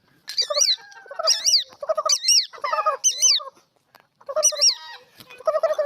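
Birds calling: repeated low clucking calls mixed with sharp, high-pitched chirps that rise and fall, in quick bursts with short pauses.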